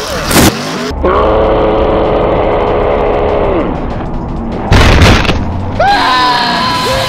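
Comic sound effects over a truck crash: a loud boom, then a long held cartoon-like note for a few seconds, a second boom about five seconds in, and short gliding cartoon squeaks near the end.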